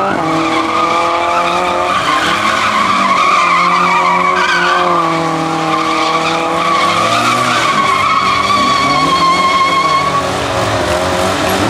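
Drifting car with its engine revving up and down while the tyres squeal in a long, steady screech that stops near the end.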